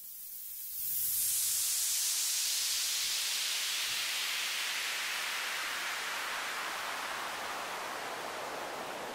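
Synthesized white-noise sweep from FL Studio's 3x Osc, its band-pass filter cutoff automated downward. The hiss swells about a second in, then slides slowly from very high to lower pitch, making a falling breakdown sweep.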